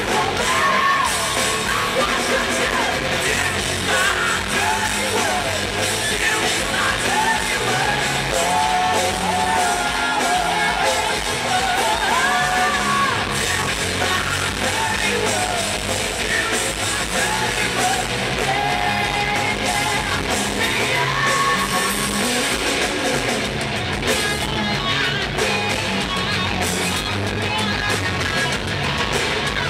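Hard rock band playing live in a large hall, a loud, dense mix of drums and distorted guitars with a wavering sung melody over it.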